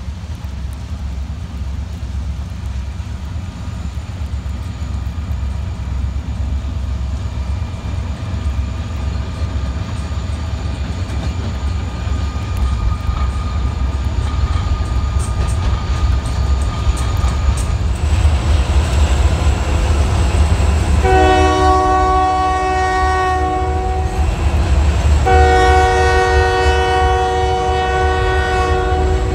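Buffalo & Pittsburgh Railroad freight train's diesel locomotives and cars running past, a low rumble that grows steadily louder. Near the end the locomotive's multi-chime horn sounds two long blasts, the second a little longer.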